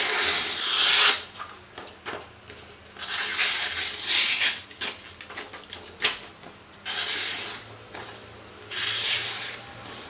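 Victorinox Swiss Army knife blade slicing through a held sheet of paper in four rasping strokes. It is a paper test of the factory edge, which cuts like a scalpel though the cut feels somewhat coarse.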